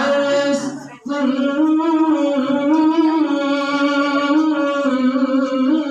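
Melodious Qur'an recitation (tilawah): a single voice holding long, ornamented notes that waver up and down in pitch, with a brief break for breath about a second in.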